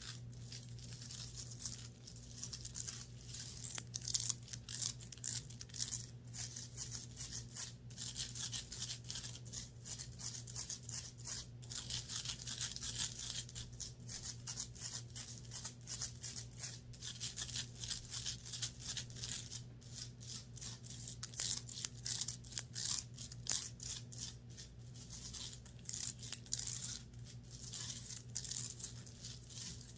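Fabric of a clothing top being scratched and rubbed up close, a dense continuous scratchy rustle that swells and eases, over a steady low hum.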